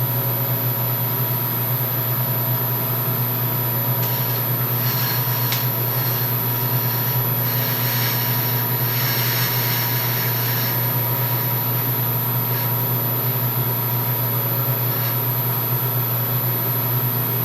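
Milling machine running steadily. From about four seconds in, several seconds of noisier cutting sound as the next hole in the bolt pattern is drilled.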